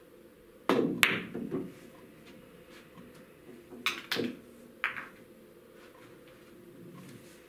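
Pool shot: the cue tip strikes the cue ball, and about a third of a second later there is a sharp click as the cue ball hits the object ball, followed by a brief rumble of balls rolling on the cloth. A few seconds later come three lighter clacks of pool balls knocking together.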